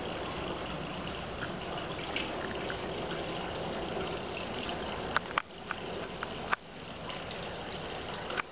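Steady trickle and splash of water from a garden wall fountain, with a few sharp clicks a little past the middle.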